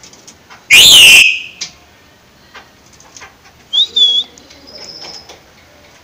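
Golden mynas calling: one very loud whistled call about a second in that sweeps up and then falls, then two short, high whistled notes a few seconds later.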